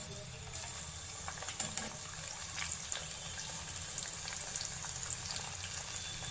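Soaked chana dal (split chickpeas) going into hot oil and deep-frying: a steady sizzle with scattered crackles and pops.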